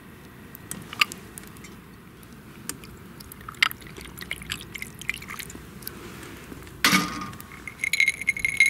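Imo shochu poured from a bottle over large ice cubes in a glass tumbler, with scattered sharp cracks and clicks from the ice. About seven seconds in there is a louder splash or knock. Near the end, ice clinks against the glass and it rings as the glass is picked up and swirled.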